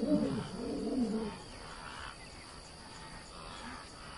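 Lion roaring: two calls that rise and fall in pitch in the first second and a half, then only faint background.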